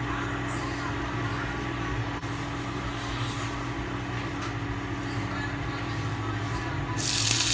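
Induction cooktop running with a steady electrical hum. About seven seconds in, chopped bacon drops into the hot oil in the frying pan and sets off a sudden loud sizzle.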